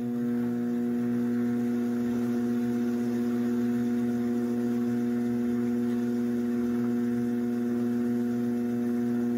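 Electric potter's wheel running at speed with a steady, even motor hum while a plate is trimmed on it.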